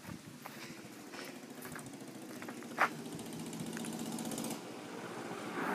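A 1969 classic moped's small engine running as it rides closer, getting steadily louder over about four seconds, then easing off briefly near the end. A single sharp click sounds about three seconds in.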